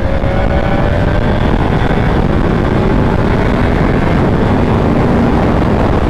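Yamaha R1M sport bike ridden at highway speed: a loud, steady rush of wind over the microphone, with the inline-four engine's note faintly audible and rising slightly in the first second or so.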